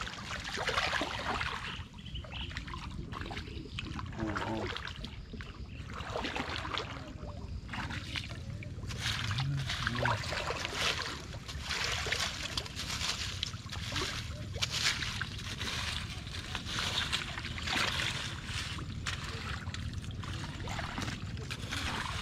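A stick probing and dragging through wet mud, dead leaves and shallow water: irregular squelching, splashing and crackling strokes at an uneven pace.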